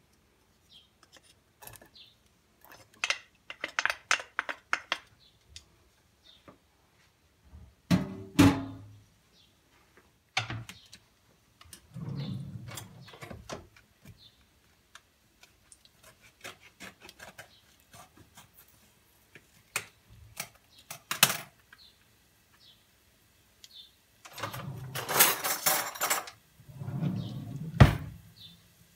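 Kitchen work sounds around a stainless steel pot as chopped garlic is added to its olive oil: scattered clicks and knocks, a few heavier thumps, and short scraping noises, the loudest a scrape about three quarters of the way through.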